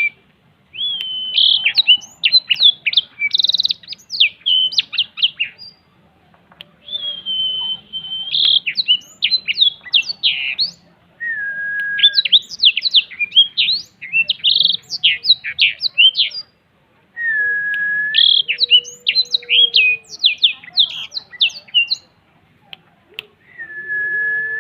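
Blackthroat (black-throated canary) singing: phrases of rapid, high, twittering trills a few seconds long, separated by short pauses, several of them opening on a single held whistled note.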